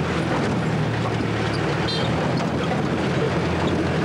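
Engine and road noise heard from inside a moving vehicle, a steady low hum under a wash of wind on the microphone. A brief high tone sounds about two seconds in.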